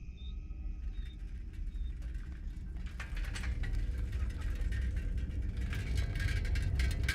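Steady low rumble of a running vehicle, with light clicking and rattling that grows busier from about three seconds in.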